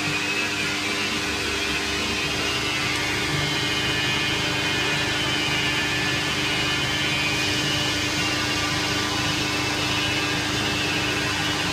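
Titan TL250V/600 variable-speed metal lathe running steadily at about 820 rpm, its motor and drive giving a steady whine while a turning tool cuts an aluminium bar.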